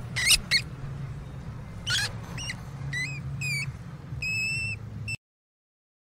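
Hamster squeaking: about seven short, high-pitched squeaks, several rising in pitch, with a longer held squeak about four seconds in, over a low steady rumble. The sound cuts off suddenly about five seconds in.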